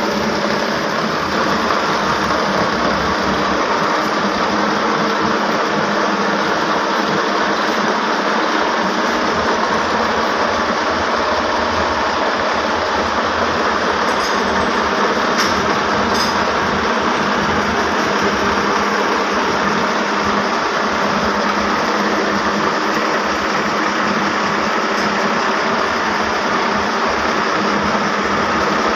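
Powerloom mill machinery running, a loud and steady mechanical noise that does not let up.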